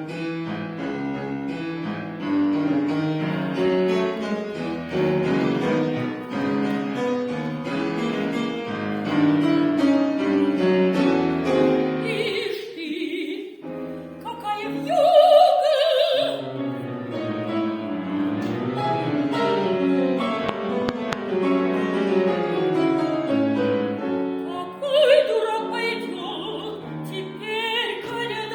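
A soprano singing an opera aria with piano accompaniment. The piano plays alone at first, and the voice comes in about twelve seconds in with wavering held high notes over the chords.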